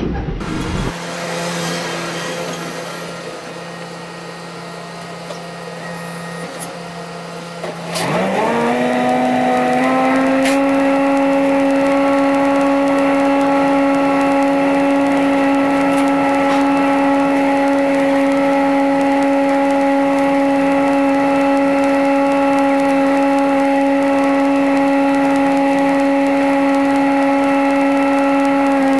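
Tractor running a Teagle Tomahawk 8500 bale processor. About eight seconds in, the machine comes up to speed with a rising whine. It then runs with a steady loud whine over a rushing noise as it shreds a round bale and blows straw bedding.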